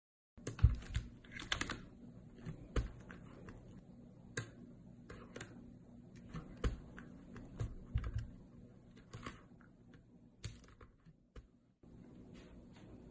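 Irregular light clicks and taps at a digital drawing screen, the stylus and controls of a pen display being worked, some taps in quick clusters. The tapping stops shortly before the end.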